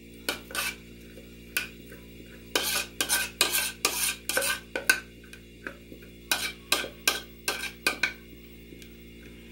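A metal spoon scraping thick cooked cream out of a metal saucepan into a baking tray: runs of short scrapes and clinks against the pan, busiest in the middle, with brief pauses between.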